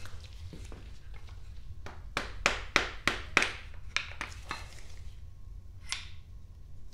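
Dead-blow hammer striking a wooden block held against the timing sprocket on a Datsun L28 engine's crankshaft nose, tapping the sprocket on over the Woodruff keys: a quick run of about eight taps, some three a second, starting about two seconds in, then one more tap near the end.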